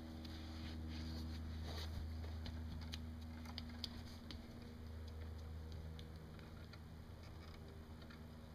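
Faint light taps and clicks, a child's footsteps on stone steps, scattered through the first half and thinning out, over a steady low hum.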